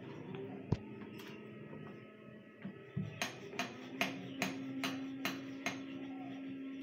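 Wooden rolling pin rolling out dough on a hard floured worktop: a knock early on, then a run of regular light knocks, about two and a half a second, in the middle stretch as the pin is pushed back and forth.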